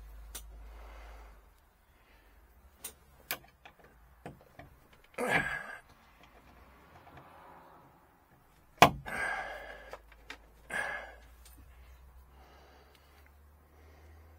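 Handling noises from hand work on roof-light wiring in a truck cab: scattered clicks and taps, a few short rustling bursts, and one sharp knock about nine seconds in. A low hum stops about a second and a half in.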